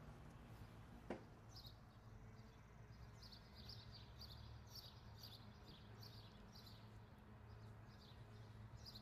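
Faint bird chirping: short high chirps repeating a few times a second over a low steady hum. One sharp click about a second in.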